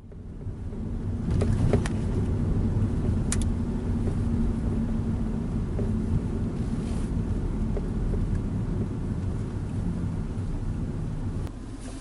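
Steady low rumble of a car heard from inside its cabin, with a few light clicks in the first few seconds. The level steps down slightly near the end.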